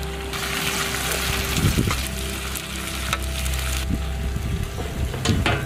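Chicken pieces deep-frying in hot oil in a large iron kadai, sizzling steadily, with a few metal scrapes and knocks as long slotted spoons lift pieces out of the oil.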